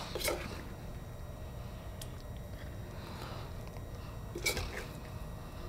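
A spoon serving saucy vegetables onto a ceramic platter: soft wet squishes and a couple of light clicks, over a steady kitchen room hum.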